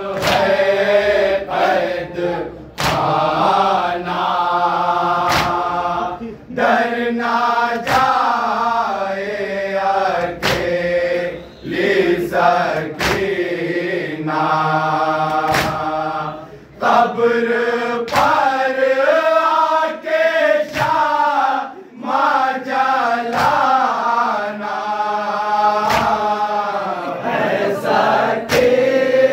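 A group of men chanting a noha, an Urdu lament, in unison behind a lead reciter. Sharp slaps of hands on chests (matam) keep the beat roughly once a second.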